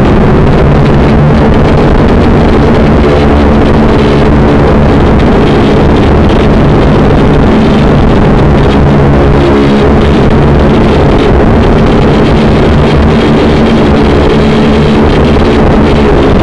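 Small quadcopter drone's electric motors and propellers buzzing loudly, close to the microphone, as a steady stack of whining tones that shift slightly in pitch as it manoeuvres.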